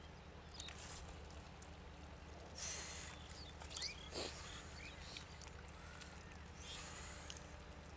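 Hands scooping in wet mud: a few soft squelching bursts, about a third of the way in and again near the end, over a faint steady low background noise, with a few short faint chirps about halfway.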